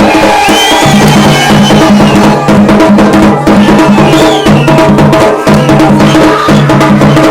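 Garhwali dhol and damau drums playing a dense, fast rhythm of sharp strokes, over a steady held low pitched tone.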